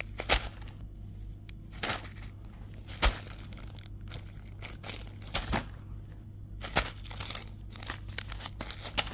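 Small clear plastic zip-lock packets of craft beads crinkling and rustling as they are picked up and shuffled by hand, with irregular sharp crackles; the loudest come about half a second, two, three, five and a half and seven seconds in.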